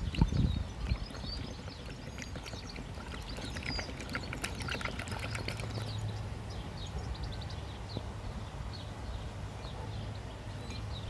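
Black swan dabbling its bill in a mug of tea, with wet slurping and splashing and a few dull knocks in the first second. Short high chirps run throughout.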